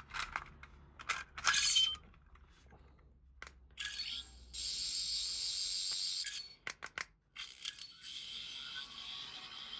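Toy Fifteenth Doctor sonic screwdrivers: sharp plastic clicks as the screwdrivers flick open, then a high-pitched warbling electronic sonic sound effect from a small built-in speaker. More clicks follow, then the sound effect starts again.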